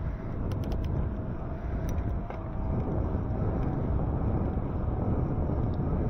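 Wind buffeting the microphone on a moving e-bike, a steady low rumble, with a few light clicks in the first couple of seconds.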